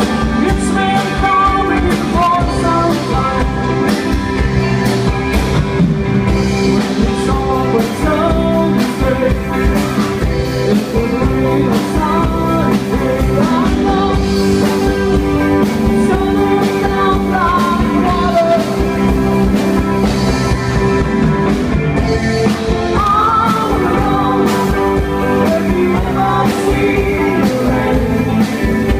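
Rock band playing with a singer: a steady drum beat under guitars and a sung melody.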